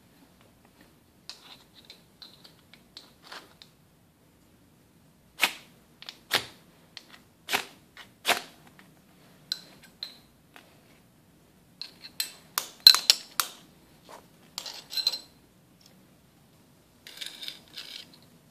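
Ferrocerium fire-starter rod scraped with a metal striker: a series of short, sharp rasping strikes, four spaced about a second apart and then a quick cluster, throwing sparks onto dryer lint, which catches alight.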